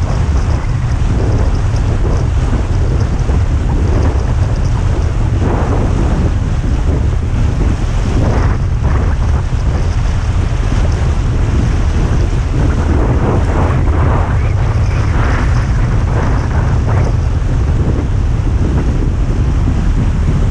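Wind buffeting the microphone in a steady low rumble, over repeated rushing surges of water as a car fords a flooded road.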